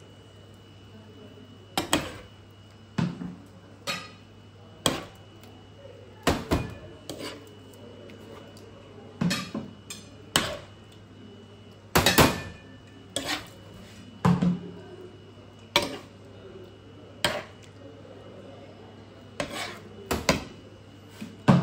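Metal serving spoon scooping braised beef from a frying pan, knocking and scraping against the pan and the ceramic plates: sharp clinks, irregular, about one every second or two. A steady low hum runs underneath.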